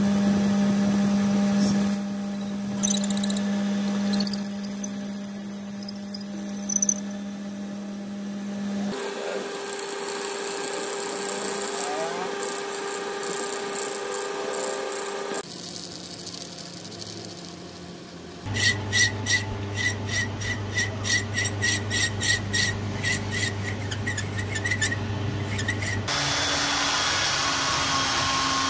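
Metal lathe running, spinning a wooden handle as a twist drill bores into it, with a high squeal from the bit, then the tool cutting the wood as it is turned. The sound changes abruptly several times. Later comes a regular pulsing about two to three times a second, and near the end the hiss of sandpaper on the spinning wood.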